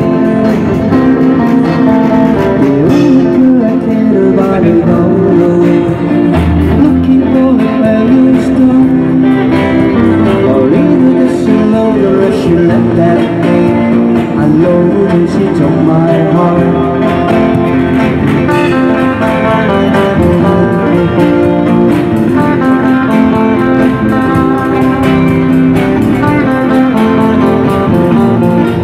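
Live band playing an oldies pop song, electric guitar to the fore over a drum kit, with some singing.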